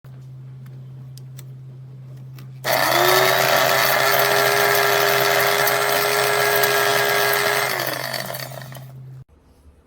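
KitchenAid blade coffee grinder's motor starting with a quick rising whine, running steadily and loudly for about five seconds, then spinning down and stopping. A steady low hum and a few clicks come before it.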